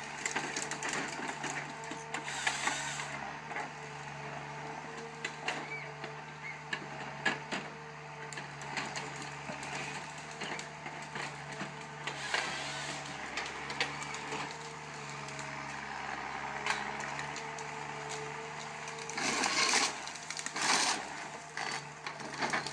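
An engine running steadily at a constant pitch, with frequent clicks and knocks and a few short hissing bursts, the last ones near the end.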